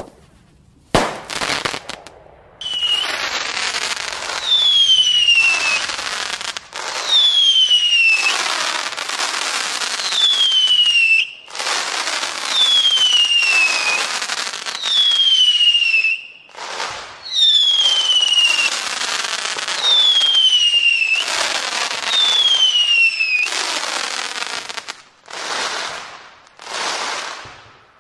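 Fireworks: a sharp bang about a second in, then about ten crackling, hissing bursts, each with a falling whistle, followed by several shorter bursts near the end.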